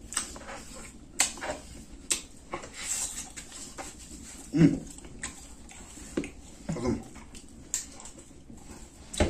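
Close-up eating sounds from gnawing and tearing meat off a cooked buffalo head by hand: wet chewing and repeated lip smacks and clicks. Two short throaty sounds come from the eater, one midway and one about two-thirds in.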